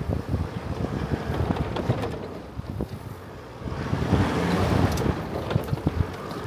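A vehicle driving along a rough dirt track, with an uneven low rumble and scattered knocks. Wind buffets the microphone throughout and grows louder about four seconds in.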